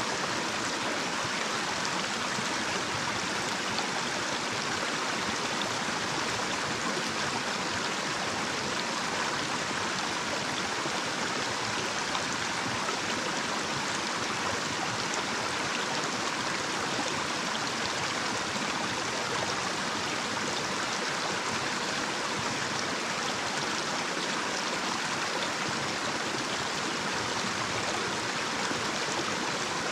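Small, shallow natural stream running over a little cascade: a steady rush of water with no breaks.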